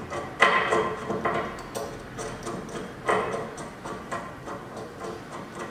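Metal faucet mounting hardware clinking and rattling as it is fitted by hand. Sharp clinks with a short ring come about half a second in, at about a second and a quarter, and at about three seconds, with lighter ticks between.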